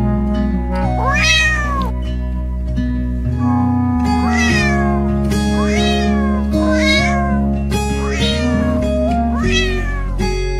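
A cat meowing about six times, each meow rising then falling in pitch, over steady background music.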